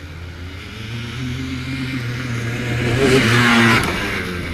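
Quad ATV engine accelerating past at close range, growing louder to a peak about three seconds in, then easing off as it pulls away.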